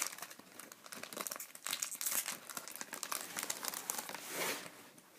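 Foil wrapper of a baseball card pack crinkling as the cards are pulled out and handled, in several short bursts of rustling, loudest right at the start.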